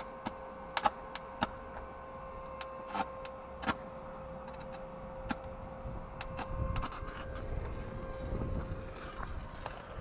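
Stick welding on an office chair's steel column with a 2.5 mm electrode: sharp ticks as the electrode is struck against the metal in the first few seconds, then from about six seconds in the arc catching and crackling, over a steady whine.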